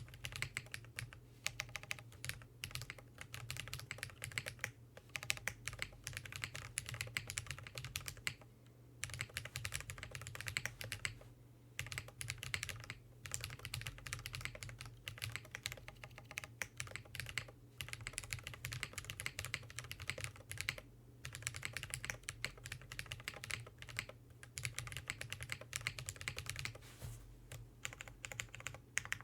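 Steady typing on a Kbdfans KBD8X MkII mechanical keyboard with lubed Drop Holy Panda tactile switches, an FR4 plate, lubed Durock stabilizers and GMK keycaps: a rapid stream of keystrokes broken by a few short pauses.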